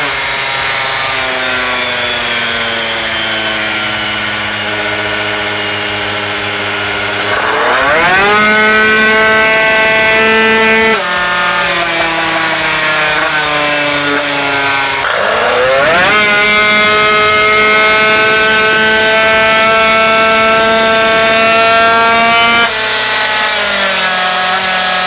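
Twin-cylinder 188cc two-stroke scooter engine at full throttle on a roller dyno, run through its belt variator. It opens winding down, revs up sharply about seven seconds in and then holds a nearly steady high pitch while the variator shifts up. It winds down again, revs up sharply a second time about fifteen seconds in and holds high, and the revs drop suddenly near the end.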